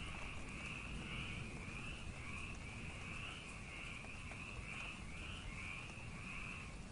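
Frogs calling in a steady chorus that pulses about twice a second, over the even hiss of night rain.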